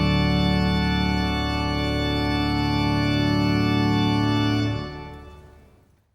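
Church organ holding a full sustained chord, the close of the prelude, released about three-quarters of the way through; the sound then dies away in the room's reverberation into quiet.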